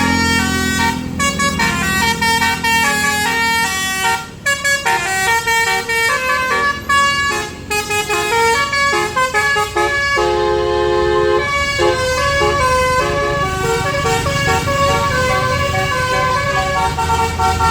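Basuri multi-note vehicle horn playing a quick melody of short, changing notes, with a few longer held notes near the middle, over a vehicle engine running.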